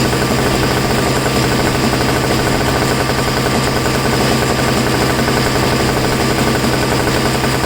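MTD snow blower's small engine running steadily and evenly. It started without choke or priming once gas was put in: the earlier no-start was simply a lack of fuel.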